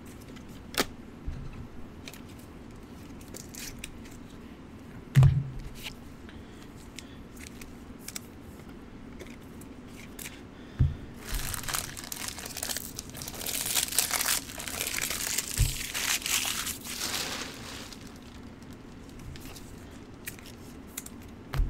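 Plastic wrapping on trading-card packaging crinkling and tearing for several seconds in the middle, as the next box of cards is opened. A few knocks of cards and boxes set down on the table, one heavier thump about five seconds in.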